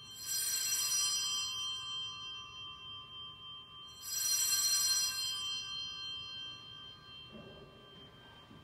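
Altar bells rung twice, about four seconds apart, each ring a bright clash followed by several tones fading slowly. They mark the elevation of the chalice at the consecration.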